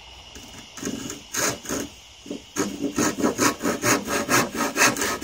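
Handsaw cutting through a wooden framing board: a few hesitant strokes to start the cut, then a steady back-and-forth rhythm of about four strokes a second from about halfway in.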